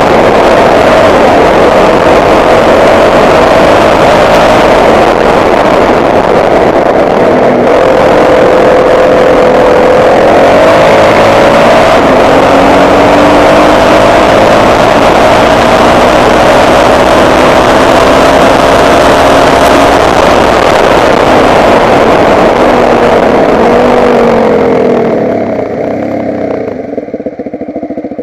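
Motocross bike engine running hard, its pitch rising and falling with the throttle, under a loud rushing noise. About 25 seconds in, the rushing and high engine sound fall away as the bike slows to a lower, quieter running.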